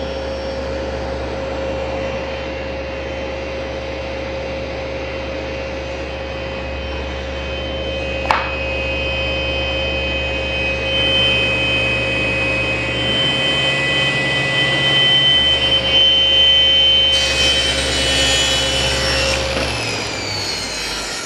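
SawStop table saw running, its blade cutting through a melamine-faced board as part of a scoring cut made to prevent tear-out. The cut is loudest in the middle. A single sharp click comes about 8 s in, and near the end the saw is switched off and the blade winds down with a falling whine.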